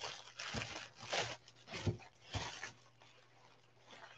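Tissue paper rustling and crinkling as it is pulled open by hand: about five quick rustles in the first three seconds, then a faint one near the end.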